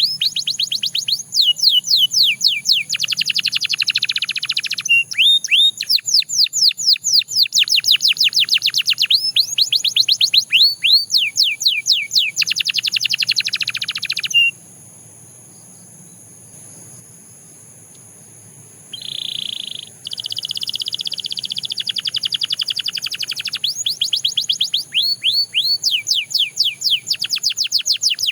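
Canary singing: fast trills of rapidly repeated falling notes in rolling phrases, breaking off about halfway through for a few seconds, then starting again. A steady faint high hiss runs underneath.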